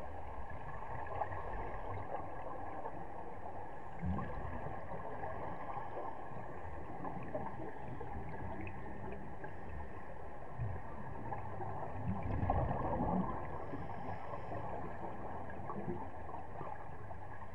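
Muffled underwater rush with gurgling bubble bursts from scuba divers' breathing, the loudest bubbling about twelve to thirteen seconds in.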